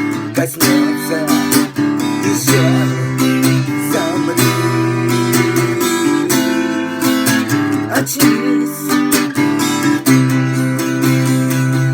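Music: an acoustic guitar strumming chords.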